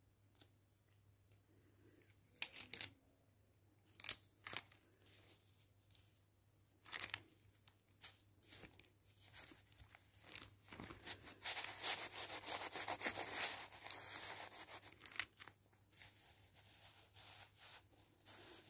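Kinetic sand crunching and crumbling as it is broken up by hand and pressed with a plastic mold: a few separate soft crunches at first, then a denser, louder run of crunching in the middle that thins out again near the end.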